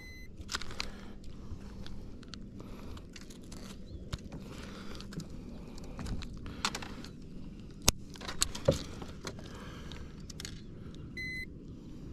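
Digital fish scale giving a short high beep at the start and another near the end, with clicks and a light metallic rattle as its clip is handled in between, and one sharp click about eight seconds in.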